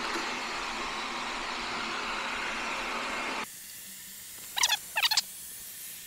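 Wyze robot vacuum running on a tile floor: a steady hiss of its suction fan and brushes that ends abruptly a little over three seconds in. After that the background is quieter, with two short high-pitched chirps near the end.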